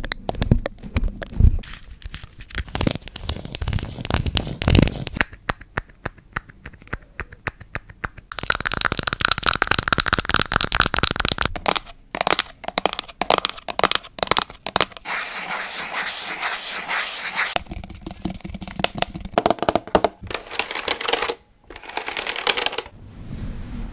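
A rapid run of close-miked ASMR trigger sounds on small plastic objects, changing every few seconds: sharp taps and clicks, a stretch of steady scratchy rustling, then more tapping. They come in turn from a roll of glitter tape, a plastic pump bottle and, near the end, the keys of a toy laptop.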